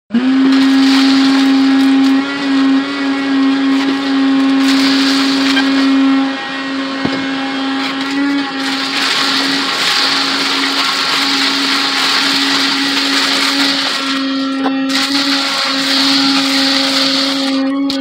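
VacMaster VWM510 wet/dry garage vacuum running steadily with a strong motor hum and hiss of air, its hose nozzle sucking up shattered oven-door glass. The sound dips briefly about two and about six seconds in.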